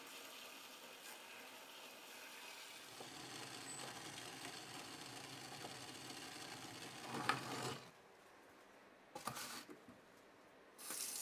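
Pot of ginger and lime slices in water at the boil, a steady low hiss. About seven seconds in there is a clatter of the pot being handled, a knock follows, and near the end a kitchen tap starts running hard into the sink.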